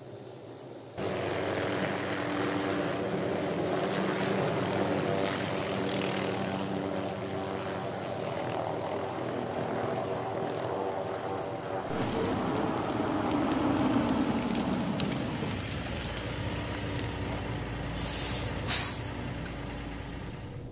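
Heavy truck's diesel engine running as it drives, starting about a second in, with two short bursts of air-brake hiss near the end as it stops.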